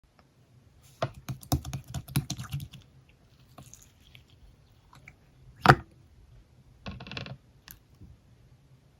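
Slime being handled and squished, making a quick run of sticky clicks and pops, then one louder pop and a short crackly squish.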